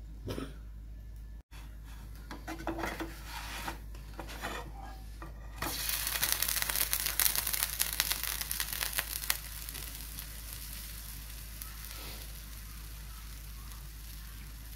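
Butter sizzling and crackling in a frying pan under a toasting bread sandwich. In the first few seconds a metal spoon scrapes butter over the bread; about six seconds in a loud crackling sizzle starts, then after about three seconds it settles into a quieter steady sizzle.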